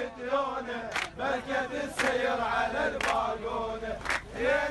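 A crowd of men chanting a protest slogan in unison, with a sharp beat about once a second.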